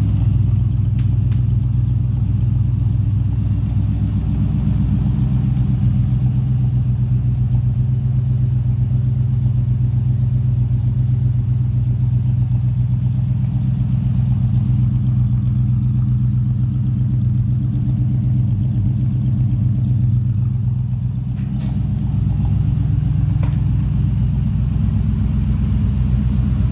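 1967 Chevrolet Caprice's V8 engine idling steadily, with a brief dip in level about 21 seconds in.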